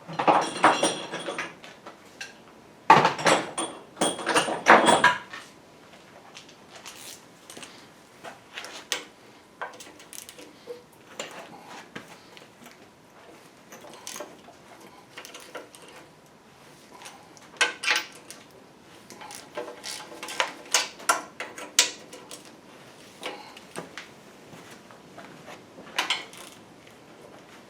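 Hand tools working on engine bolts: two bursts of rapid clicking with a bright metallic ring in the first five seconds, then scattered metallic clinks and taps.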